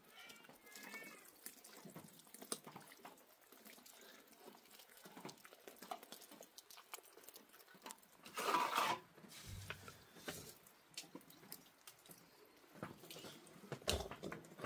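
An animal calling twice: a faint wavering call near the start and a louder call about eight seconds in, among scattered light clicks.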